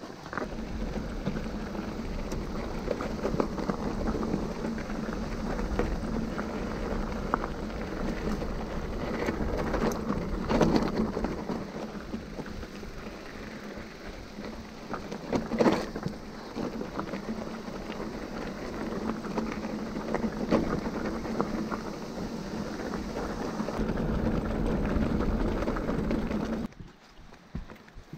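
Mountain bike tyres rolling over a rough, gravelly trail, with a steady crunching rush full of small knocks and rattles from the bike. It cuts off sharply about a second before the end.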